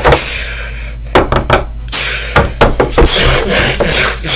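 Small plastic toy animal figures knocked, clattering and scraped along a wooden tabletop by hands, with a few sharp knocks between longer rubbing scrapes.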